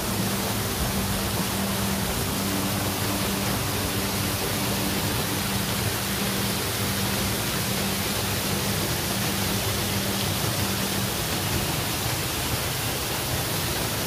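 Steady rushing of a waterfall, water pouring over rock into a plunge pool.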